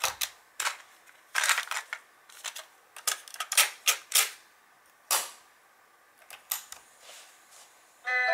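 Panasonic RQ-8100 portable cassette recorder's piano-key controls and cassette door being worked: a run of sharp plastic clicks and clacks as keys are pressed, the door is opened, a cassette is handled and the door snaps shut. Music starts playing just at the end.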